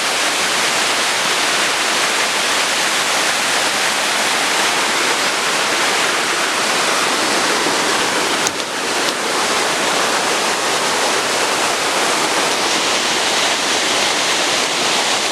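Waterfall: a steady, loud rush of falling water, with a brief dip in level about halfway through.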